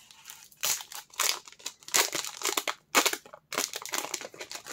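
Foil Pokémon booster-pack wrapper crinkling and crackling in the hands as it is torn open and peeled off the cards, in irregular bursts.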